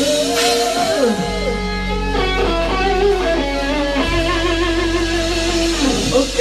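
Live rock band with an electric guitar playing lead: sustained, bending notes with a falling slide about a second in and another near the end, over a steady bass.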